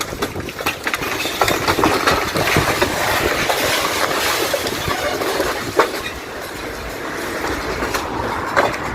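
A train passing, its wheels clattering on the rails, with a few sharp clicks standing out.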